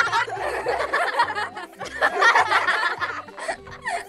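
Children's voices laughing and giggling.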